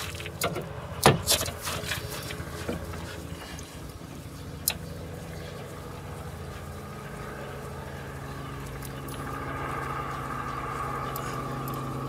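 A few sharp clicks and knocks, the loudest about a second in, as a car jack is wound up by hand under the car. Beneath them is a steady engine-like hum from a vehicle, which grows louder about nine seconds in.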